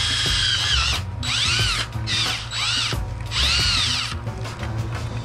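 Cordless drill running at high speed while drilling holes in a dash mount bar. It then winds down and spins back up in three short pulses as the trigger is eased off and squeezed again, and stops about four seconds in.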